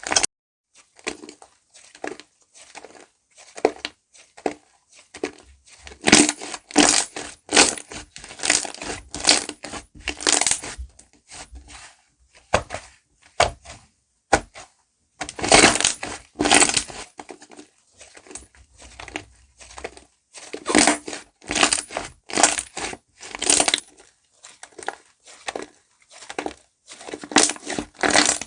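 Slime being squeezed and pressed by hand, making irregular bursts of many tiny clicks and pops that come and go every second or so.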